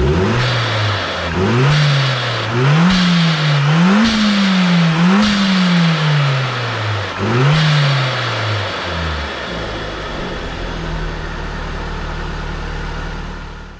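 Toyota 3S-GTE 2.0-litre turbocharged four-cylinder engine being free-revved in about six quick throttle blips, with a short hiss as the throttle shuts each time, to test a newly fitted aftermarket blow-off valve. It then settles back to a steady idle about nine seconds in.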